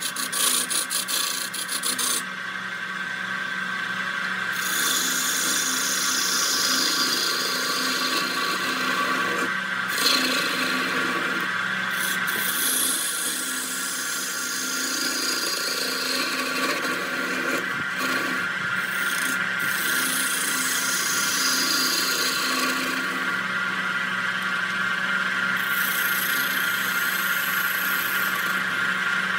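Wood lathe running with a steady motor hum while a tool rasps against the spinning redwood blank. The scraping hiss comes and goes in stretches, and there are quick ticks in the first couple of seconds.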